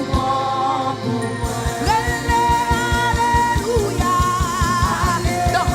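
Live gospel worship music: a singer holds long notes with vibrato over the church band. About a second and a half in, a rapid, steady drum beat comes in.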